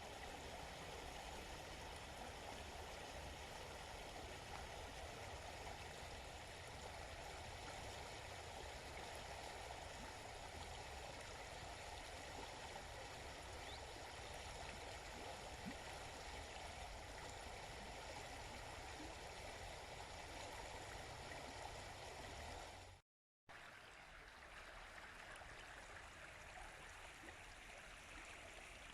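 Quiet, steady babbling of a stream, running water with no distinct events. About three-quarters of the way through it fades and drops out for a moment, then resumes sounding slightly thinner and hissier.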